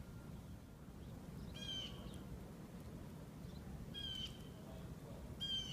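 A bird calling three times, each a short call about two seconds apart, over a steady low rumble.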